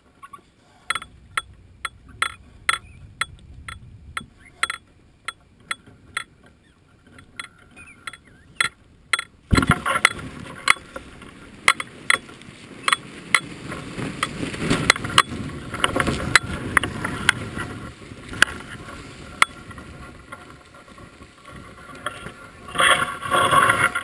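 Hot air balloon basket creaking with sharp, irregular clicks. About nine seconds in it touches down hard on the snow, then drags across it with a steady scraping hiss, and knocks and creaks carry on over it. The scraping gets louder near the end.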